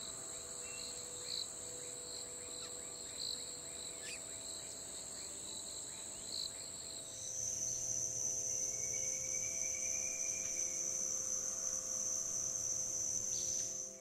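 Steady, high-pitched drone of insects, with short faint bird chirps every couple of seconds in the first half. About halfway through, the drone drops slightly in pitch and gets louder.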